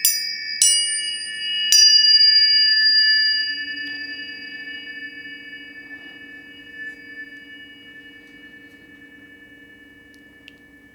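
Tuning forks struck three times in quick succession, then ringing on with several steady high tones that slowly fade away.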